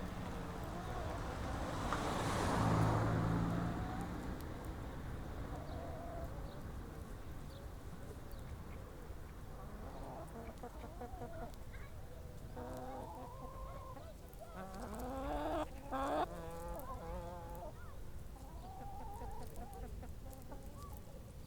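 Farmyard ambience: hens clucking with short, repeated calls, and a rooster crowing about fifteen seconds in. A brief swell of rushing noise with a low hum comes about three seconds in.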